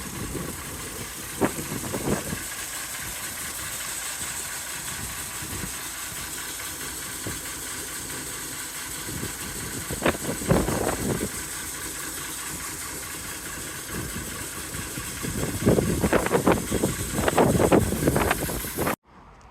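A narrow-gauge railway train running, heard as a steady mechanical noise with louder bursts about a second and a half in, around ten seconds in and over the last few seconds. It cuts off suddenly just before the end.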